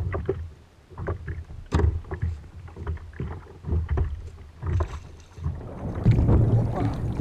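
Water slapping and lapping against a plastic sit-on-top kayak hull, with irregular knocks and splashes. About six seconds in it turns into a steadier, louder rush of water and wind.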